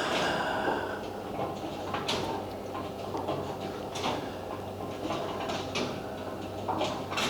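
Bowling alley background: scattered knocks and clatter of balls and pins on the lanes, roughly one every second or two, over a steady low hum of the alley's machinery.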